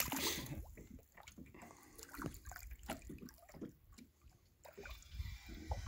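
Water splashing and sloshing as a hooked fish thrashes at the surface beside a boat, with a louder splash right at the start and then small irregular splashes and drips.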